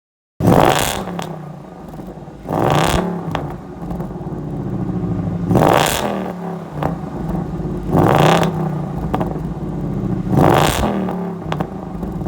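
A V8 muscle car's exhaust revved repeatedly, five sharp blips about every two and a half seconds, dropping back to idle between them. The sound cuts in suddenly about half a second in.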